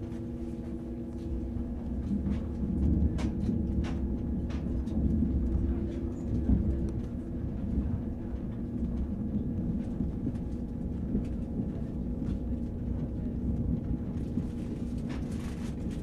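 Inside a German ICE high-speed train travelling slowly: a steady low rumble with two steady hums, one of which stops about seven seconds in. A few short clicks and knocks come between about three and six seconds in.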